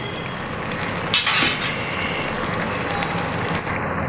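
Egg noodles in spicy sauce simmering in a steel pan, a steady bubbling hiss, with a single metal clink about a second in.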